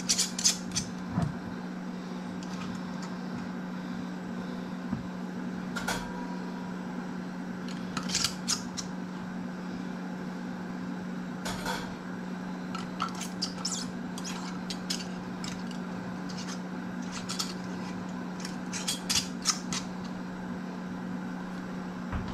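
Metal screw bands being twisted onto glass canning jars: scattered short metallic clicks and scrapes, a few at a time, over a steady low hum.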